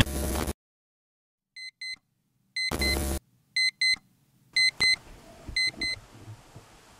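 Electronic alarm beeping in pairs of short high beeps, five pairs about a second apart, with a brief burst of noise around the middle. Music ends about half a second in.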